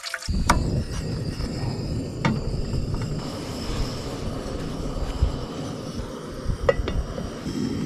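Wind buffeting the microphone outdoors, a steady low rumble that rises and falls, with a few sharp clicks of handling scattered through it.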